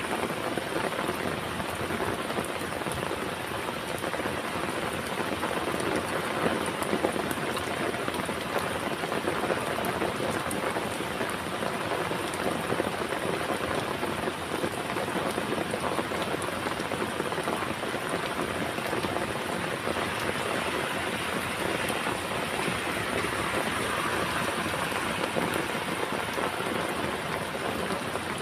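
Heavy rain falling steadily, a dense spatter of many individual raindrops with no let-up.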